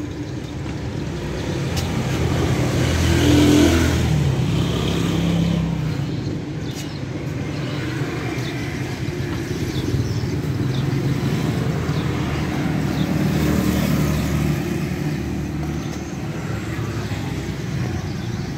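Motor traffic passing on the street, engines rising and fading, loudest about three to four seconds in and again around thirteen seconds.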